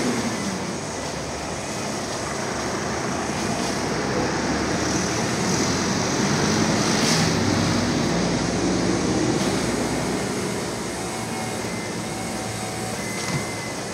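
Distant engine rumble, steady and even, swelling a little around the middle of the stretch and easing off towards the end.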